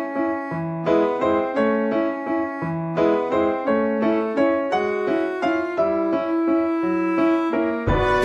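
Background music: a piano-like keyboard playing a gentle melody of separate, evenly paced notes. A fuller, brighter passage comes in near the end.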